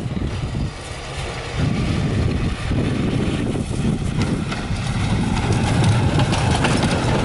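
Tram approaching over snowy rails and passing close by: a low running rumble that grows louder from about two seconds in, with irregular clattering clicks from its wheels in the second half.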